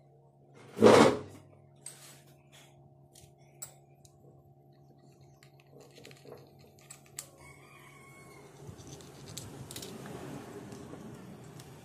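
Hands handling slingshot parts and tools on a hard stone tabletop: one loud knock about a second in, then scattered faint clicks. A soft rustling hiss grows over the last few seconds.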